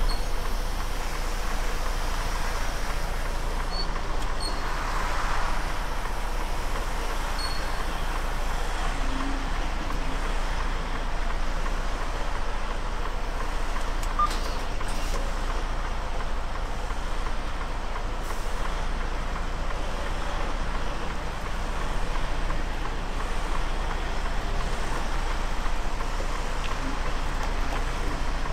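Freightliner Cascadia semi truck's diesel engine running steadily, a constant low rumble.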